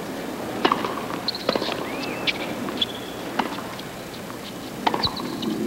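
Tennis rally on a hard court: a ball struck by rackets and bouncing, sharp knocks about a second apart, with short high squeaks of tennis shoes on the court.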